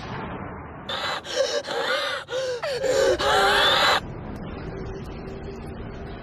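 A woman gasping and crying out in several loud, strained, choking bursts, cut off suddenly about four seconds in. A low steady drone follows.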